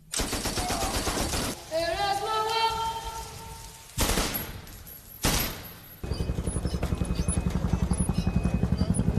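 Film soundtrack: a burst of automatic rifle fire, then a voice yelling, then two single loud gunshots. From about six seconds in, a steady, rapid, low throbbing pulse takes over.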